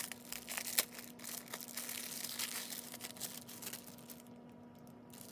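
Thin plastic cellophane sleeve crinkling and crackling as it is peeled off a clear acrylic stamp sheet, dying down about four seconds in. A faint steady hum lies underneath.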